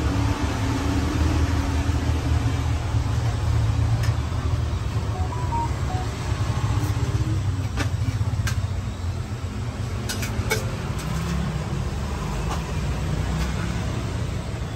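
Steady low rumble of road traffic, with a few sharp clicks and taps about a third of the way in and again past the middle.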